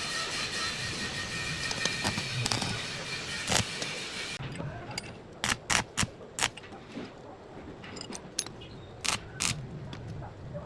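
Metalwork sounds: a steady hiss with a few held tones that cuts off about four seconds in, then sharp metallic clinks and taps, several in quick succession about five to six and a half seconds in and two more about nine seconds in.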